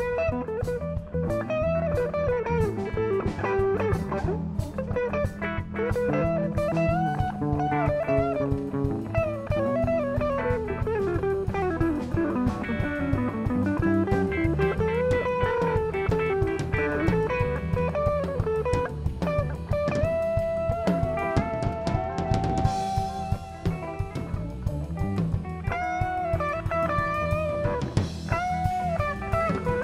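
Live blues band playing an instrumental break: electric guitars, bass guitar and drum kit, with a harmonica played into a hand-held microphone carrying a wavering, bending lead line.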